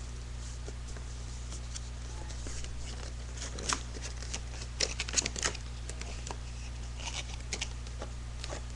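A webcam's retail packaging being handled and opened by hand: scattered clicks and short rustles, busiest in the middle, over a steady low hum.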